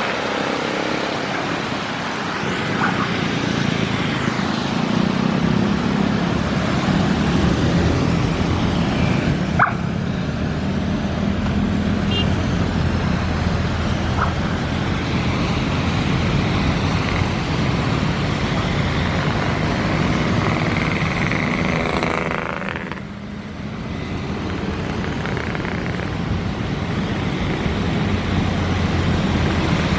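Steady city traffic of cars and motorcycles passing on a wet road: tyres hissing and engines humming, with a short sharp high chirp about ten seconds in.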